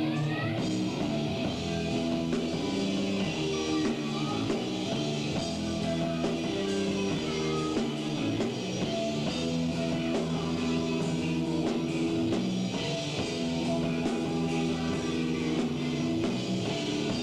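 A rock band playing live, with guitar and drum kit.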